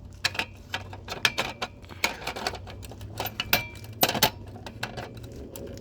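Irregular clicks, taps and scrapes of an air conditioner's pull-out disconnect block being fumbled and pushed back into its disconnect box.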